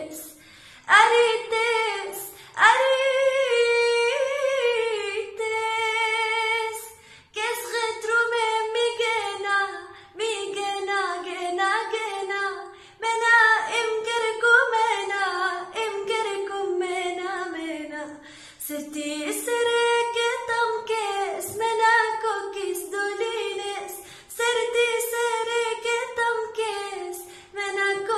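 A woman singing alone, without accompaniment, in a string of phrases whose pitch slides and wavers in ornaments, with short breaks for breath between them.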